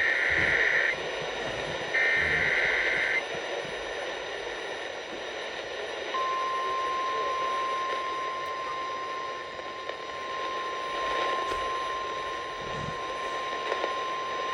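NOAA Weather Radio Emergency Alert System signal heard through radio hiss: two roughly one-second bursts of the warbling SAME digital header, then, about six seconds in, the steady 1050 Hz warning alarm tone, which is still sounding at the end. The alarm tone announces a new warning broadcast.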